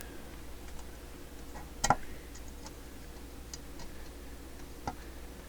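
Scattered light clicks and taps of handling work on a workbench, with a sharper click about two seconds in and another near the end, over a steady low hum.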